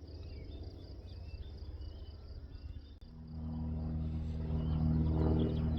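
Small riding-mower engine running, louder and fuller about three seconds in, with high chirps over it.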